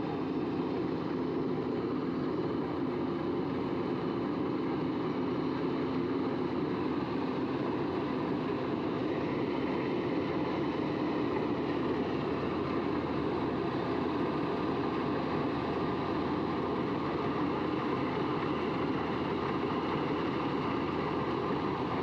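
Kubota combine harvester running steadily while cutting rice: a continuous engine and machinery drone that does not let up.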